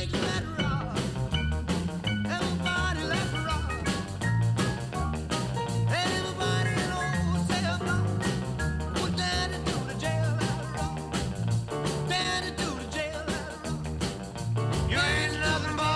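Upbeat rock-and-roll backing music with a steady bass and drum beat, starting right at the start after a brief gap.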